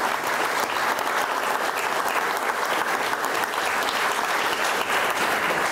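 A small crowd applauding steadily, many hands clapping at once.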